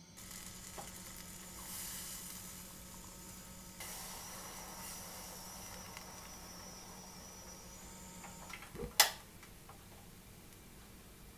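Gas burner hissing under a pan of milk heating to the boil. The hiss stops about three-quarters of the way through, and a single sharp click follows, fitting the burner being turned off.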